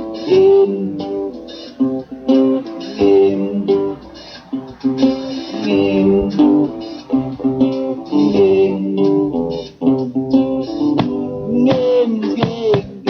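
Guitar playing an instrumental passage of picked notes, with a few bent notes near the end.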